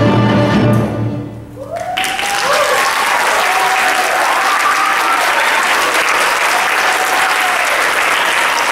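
A string orchestra holds its final chord, which fades away within about two seconds; then the audience breaks into steady applause, with a few voices calling out.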